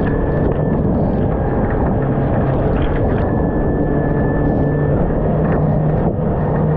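Outboard motor running steadily under way, driving a Stabicraft 15.5 aluminium boat through rough water: a loud, dense rumble of engine, hull and water, with a steady engine whine.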